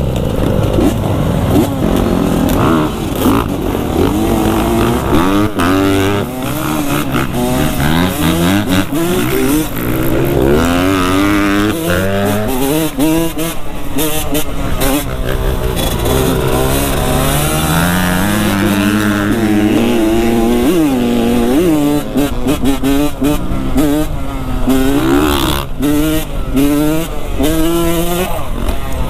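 Dirt bike engine running while being ridden, its revs climbing and dropping over and over.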